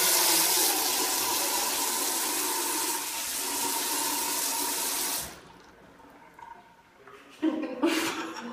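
Water from a single-lever bathroom faucet running steadily into a ceramic washbasin, then shut off abruptly about five seconds in.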